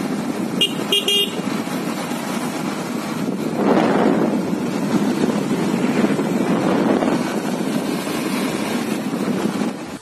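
Motorcycle riding along a road: a steady rush of wind and engine noise that swells and eases, with two short horn toots about a second in.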